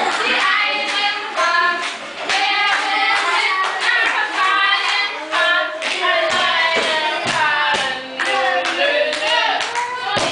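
Children singing together, with hand claps through the song.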